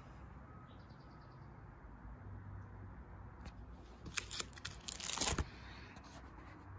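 Clear plastic photo-album sleeves crinkling and clicking as a page is handled, a burst of crackle about four seconds in that lasts about a second and a half, over a faint low hum.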